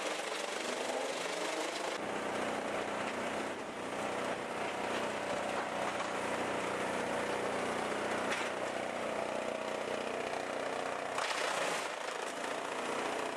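Engine-driven heavy machinery running steadily, the sound changing abruptly a few times as one machine gives way to another.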